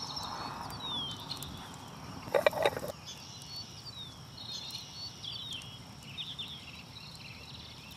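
A ceramic lid set down on a small earthenware crock with a brief ringing clink about two and a half seconds in. Around it, birds chirp and a steady high insect buzz carries on in the open field.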